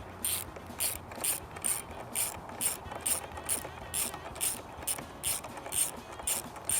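Hand ratchet wrench clicking steadily, about two clicks a second, as a bolt is turned.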